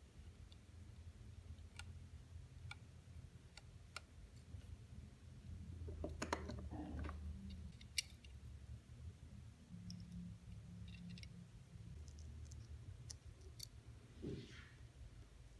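Faint, irregular light clicks of small watchmaker's tools on an Orient mechanical watch being taken apart, with some brief handling noise in the middle and near the end.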